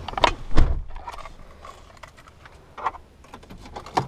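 Handling noises of someone settling into a pickup's driver seat: scattered clicks, knocks and rustling, with a low thump about half a second in.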